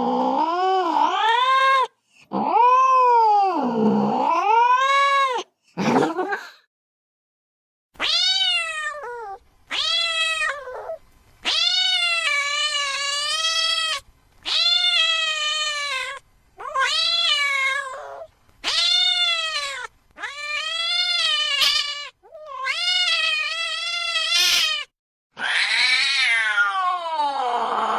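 Domestic cat meowing: about a dozen drawn-out, loud meows in a row, each a second or more long with a wavering pitch and short breaks between them. The last meow slides down in pitch.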